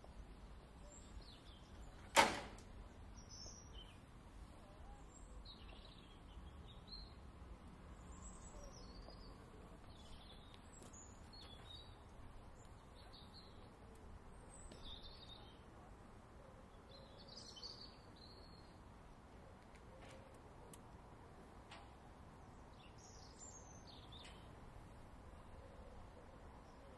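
Railway points changing with one sharp metallic clunk and a short ring about two seconds in, against birds chirping.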